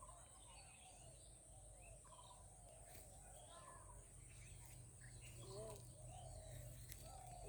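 Faint, scattered short calls of domestic ducks chattering.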